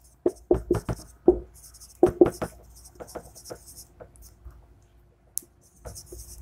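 Marker pen writing on a whiteboard: the felt tip scratching and tapping against the board in short strokes, with a quieter pause a little after four seconds in before it starts again.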